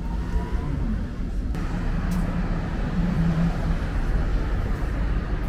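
City street traffic: motor vehicles running by with a steady low rumble, joined by a wider rush of noise about a second and a half in.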